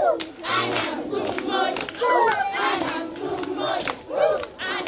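A group of schoolgirls singing and chanting together, many voices at once, with sharp hand claps in among them.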